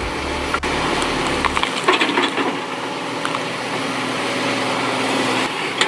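A heavy machine's engine runs steadily while wood cracks and splinters under it as it tears into a tree stump.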